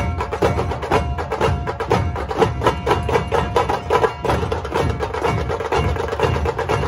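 Dhol-tasha ensemble drumming: drums struck with thin sticks in a fast, even, driving rhythm of sharp strokes.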